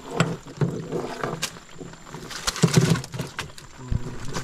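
Irregular knocks, taps and rustles of a collapsible wire-ringed mesh keep net holding live prawns as it is handled against a boat deck.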